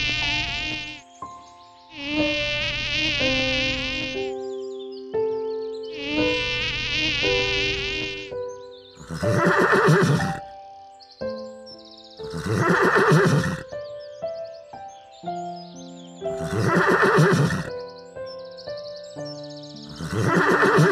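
A mosquito buzzing in three bursts of about two seconds each, followed by four horse-like zebra whinnies about four seconds apart. Soft background music with long held notes plays underneath.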